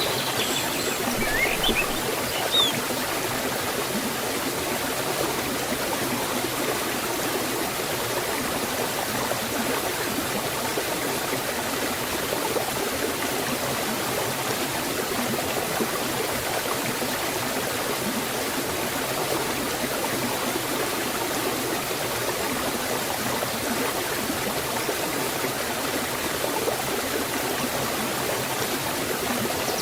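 Water of a small forest waterfall and stream rushing and splashing steadily. A bird chirps a few times in the first couple of seconds.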